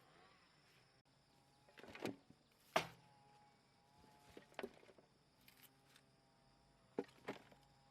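A few scattered knocks and taps, about five, the loudest a sharp knock about three seconds in, followed by a faint, brief ringing tone.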